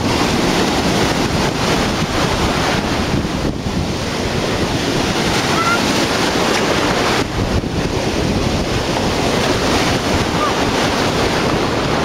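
Sea surf washing in steadily, with wind buffeting the microphone.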